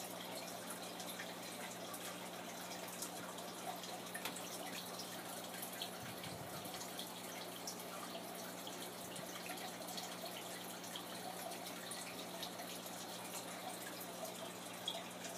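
Aquarium water trickling and dripping, with many small ticks and pops, over a steady low hum.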